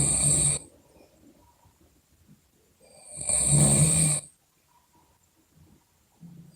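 Loud snoring at about one snore every three and a half seconds, with quiet breathing gaps between. One snore ends about half a second in, a full one comes at about three seconds and lasts over a second, and the next begins right at the end. Each snore is a low buzz with a high whistle over it.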